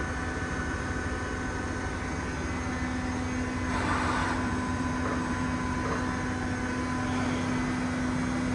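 Weiler E50 CNC lathe running under power: a steady machine hum with a low drone and fainter high whines, and a brief hiss about four seconds in.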